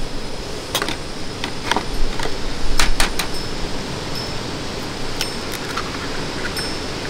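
Eggs clinking against a ceramic bowl and an egg tapped and cracked open: a handful of sharp clicks and knocks, loudest about three seconds in, over a steady background hiss. Short high pings follow in the second half.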